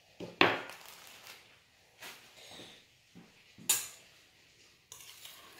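Kitchenware knocking and clattering: a handful of separate sharp knocks, the loudest about half a second in and another strong one a little past the middle.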